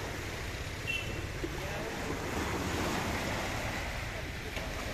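Small waves breaking and washing up on a sandy beach: a steady rush of surf.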